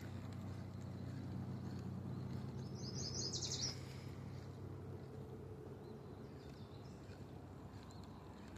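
A songbird sings one short, rapid trill of high notes about three seconds in, over a steady low hum.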